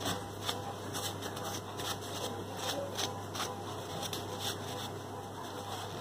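Cloth wiping dust and thread lint off the bare hand-wheel shaft of a sewing machine: faint, irregular rubbing strokes over a steady low hum.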